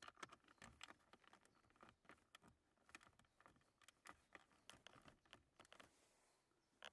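Near silence broken by faint, irregular small clicks and taps, with one slightly louder click near the end.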